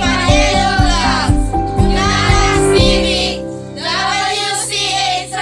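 Background music: a song with a singing voice over a steady beat. The beat drops out about three seconds in, leaving held notes under the voice.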